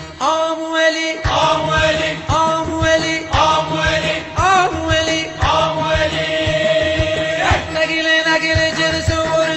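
Bandari-style southern Iranian music: a steady drone with a melody that swoops up into a new phrase about once a second, over regular drum beats.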